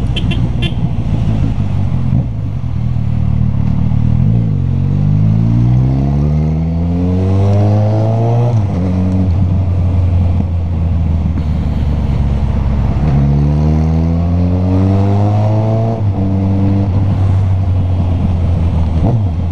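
Motorcycle engine and exhaust while riding: a steady drone that twice climbs in pitch under acceleration for a few seconds and drops off suddenly as the throttle closes or the gear changes.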